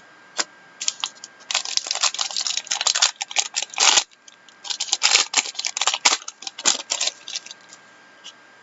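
A trading-card pack being torn open and its cards handled: dense crinkling and clicking in two flurries.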